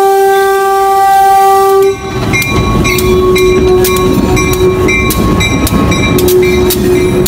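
Union Pacific GP15-1 diesel switcher passing close by. Its air horn sounds one long blast of about two seconds, then its bell rings in steady strokes over the rumble of the engine and wheels.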